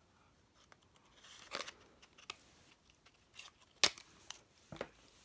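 Small cardboard packaging of a nail polish being opened and handled: a brief rustle about a second in and scattered sharp clicks, the loudest just before four seconds.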